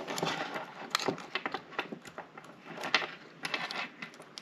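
Irregular small clicks and scrapes as fingers seat a 377 silver button-cell battery into the open metal case back of a wristwatch.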